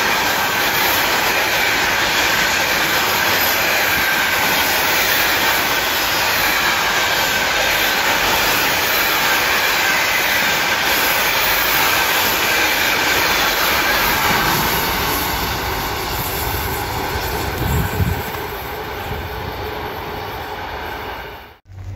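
Container wagons of a long intermodal freight train rolling past, a steady loud noise of wheels on the rails. It eases off over the last several seconds as the end of the train moves away, with a brief knock near the end, then cuts off suddenly.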